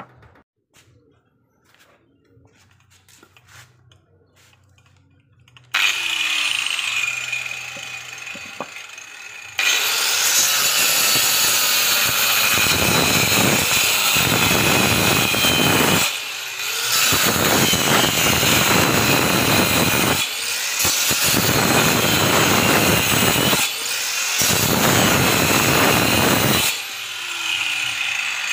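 A 100 mm handheld angle grinder fitted with a toothed wood-cutting saw blade in a homemade base plate. It switches on about six seconds in and runs free with a high whine, then saws along a wooden plank in four stretches with short breaks, and runs free again near the end.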